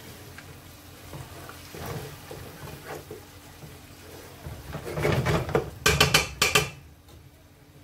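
Wooden spoon stirring and scraping through a thick tomato and pepper sauce in a large non-stick pot, then a quick run of sharp knocks of the spoon against the pot about six seconds in.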